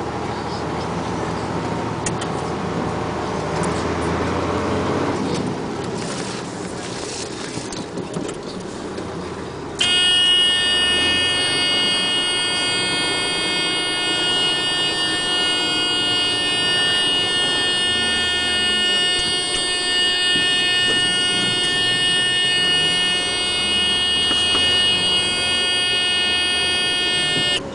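Heavy machinery and truck engine running, then about ten seconds in a loud, steady electric horn or buzzer starts abruptly, holds one unchanging tone for about eighteen seconds and cuts off suddenly.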